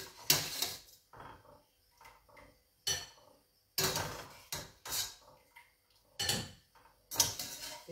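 Metal utensil clinking and scraping against a stainless steel pot as boiled chard stalks are lifted out, about six separate clatters with short quiet gaps between.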